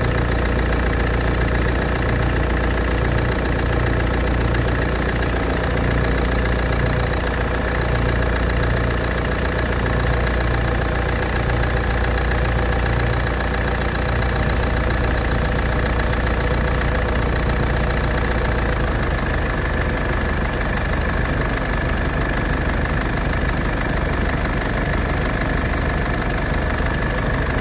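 Mercedes common-rail diesel engine idling steadily, a replacement injector just fitted in number one cylinder. A Ford Transit's engine runs alongside and masks how the Mercedes is running; the deep drone changes about two-thirds of the way in.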